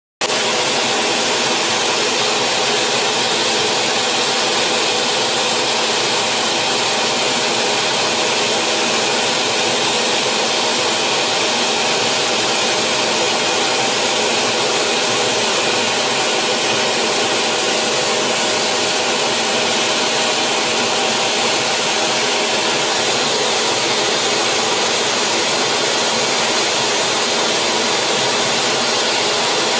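Jet aircraft in flight: engine and rushing air make an even, unchanging noise with a faint steady hum in it.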